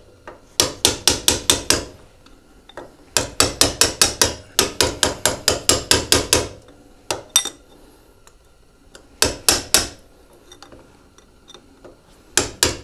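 Hammer tapping a drift against the notched preload spanner ring of a Suzuki DR650's rear shock, spinning the ring to change spring preload. Runs of quick, sharp metallic taps, about five a second, broken by short pauses.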